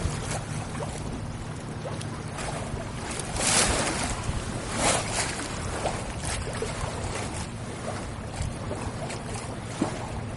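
Water washing along a moving boat's hull with wind on the microphone, with a louder swish now and then over a steady low hum.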